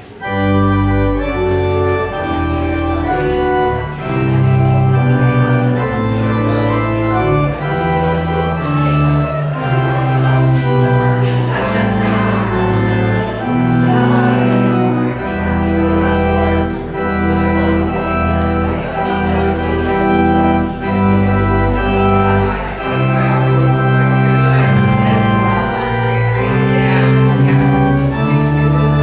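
Church organ playing a piece in slow, sustained chords over a low bass line. It comes in suddenly.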